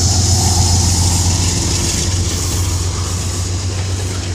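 Metro-North GE P32AC-DM dual-mode diesel locomotive passing close with its coaches: a steady low engine drone over the rolling noise of the train, slowly fading as the coaches go by.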